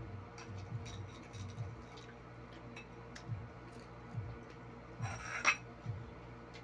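Soft clinks and taps of ceramic plates and fingers picking up food during a meal eaten by hand, with a brief louder scraping rustle about five seconds in.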